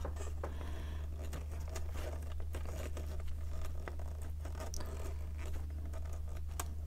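Small screwdriver turning a screw into the plastic frame of a 1:6 scale model kit, with many faint irregular clicks and scrapes of plastic and metal parts being handled, over a steady low hum. The screw is not tightening because the parts are not quite lined up at the other end.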